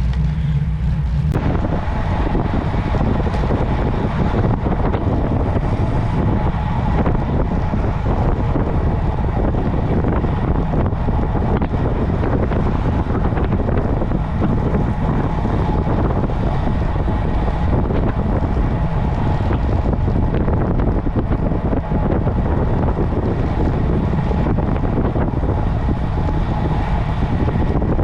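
Wind rushing over the microphone of a cyclist's camera during a road ride, a loud, steady rush that grows suddenly fuller about a second in.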